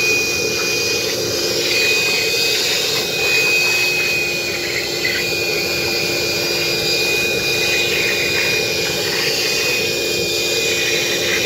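Vacuum cleaner running steadily with a high whine, its hose nozzle sucking up hair, crumbs and dirt from a car's floor carpet.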